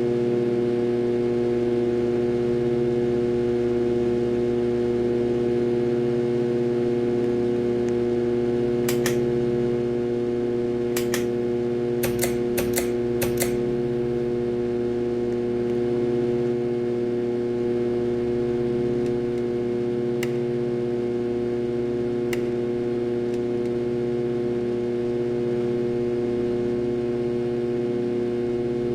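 Harbor Breeze Ocracoke ceiling fan running with a loud, steady electrical hum from its failing motor. Several sharp clicks come from about nine seconds in, with a couple more later.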